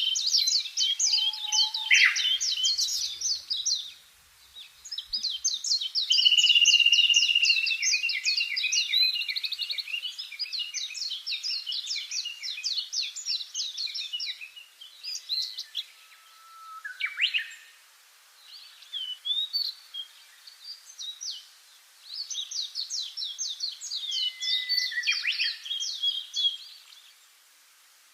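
A songbird singing long, rapid trilled phrases of quick high notes, each run lasting several seconds, with short pauses and a few shorter bursts in between.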